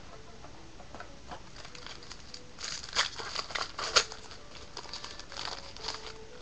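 Foil wrapper of a 2013 Topps Series 1 jumbo pack being torn open and crinkled by hand. It is a run of crackling rustles about halfway through, with two sharp louder tears about three and four seconds in.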